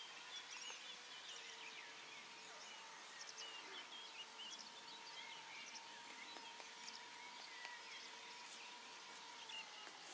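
Faint, steady high-pitched drone of a tiny 0.17 cc combustion engine on a small radio-controlled model airplane in flight. Birds chirp throughout.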